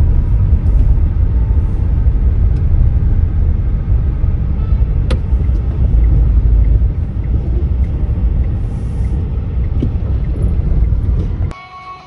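Steady low rumble of a moving car heard from inside the cabin: engine and tyre noise on the road. It drops away abruptly near the end.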